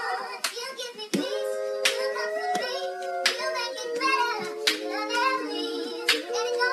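Hip-hop beat playing its intro before the vocals: held chords and a high melodic line, punctuated by sharp clap hits, with no bass.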